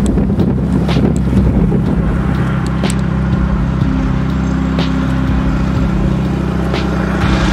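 Narrow-gauge diesel locomotive running steadily as it hauls its train, a low engine drone with a brief steady tone about four seconds in and scattered clicks.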